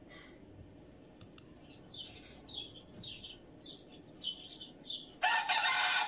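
Several short high-pitched chirps from chickens, then about five seconds in a rooster starts a loud crow.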